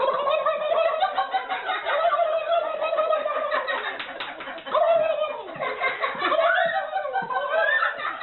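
A man imitating a turkey's gobble with his voice, a continuous warbling, laugh-like call.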